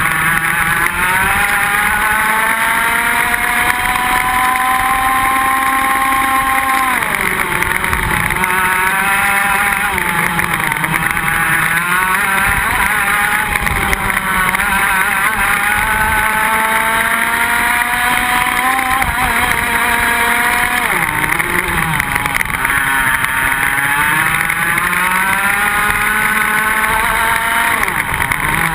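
Iame X30 125cc two-stroke kart engine heard from on board at race pace, with a steady rush of noise under it. Its pitch climbs for several seconds at a time down the straights and drops sharply as the throttle comes off for the corners, about a quarter of the way in and again about two-thirds in, before climbing again near the end.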